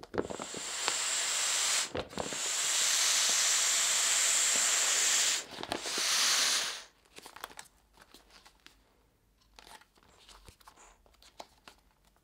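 Air hissing out of the valve of a LuminAID PackLite Max inflatable lantern as it is squeezed flat, with its plastic body crinkling. The hiss comes in three long pushes, breaking briefly about 2 and 5.5 seconds in and ending about 7 seconds in; after that only faint rustles of handling.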